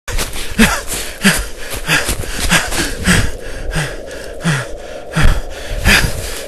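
A person breathing hard while running: loud, rhythmic gasping breaths about one and a half per second, each with a short falling voiced edge, with noisy steps over leaf litter.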